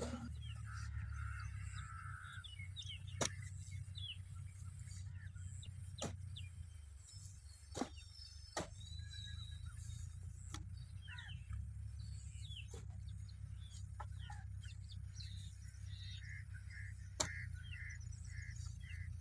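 A kahi hoe's blade striking and dragging through dry, clumpy soil, with sharp knocks a few seconds apart, about seven in all, as the soil is chopped and pulled into ridges. Birds chirp throughout over a steady low rumble.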